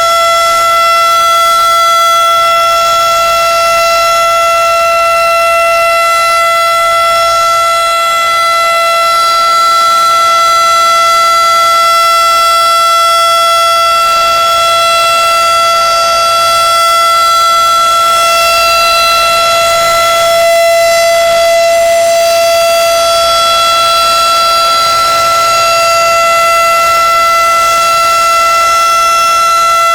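Federal Signal RSH-10A Thunderbeam civil defense siren sounding a very loud, steady single tone at full speed, rich in overtones. Its level wavers slightly as the rotating deflector plate sweeps around.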